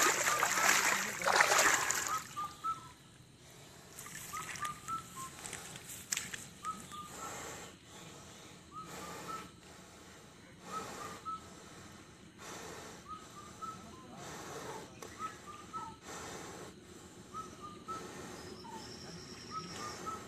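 Baby Asian elephant breathing through its trunk, a breath about every two seconds. Loud splashing in mud in the first two seconds.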